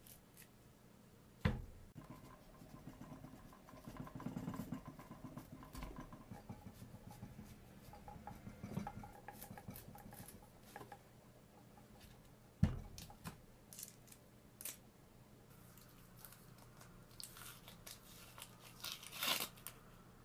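Onion being peeled by hand: dry, papery skin crinkling and tearing as it comes away. Two sharp knocks, about a second and a half in and past the middle.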